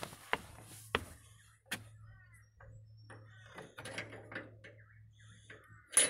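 A few footsteps knocking on wooden steps, then a metal gate latch on a wooden gate being worked by hand with small rattles and scrapes, ending in one loud sharp clack as it comes open.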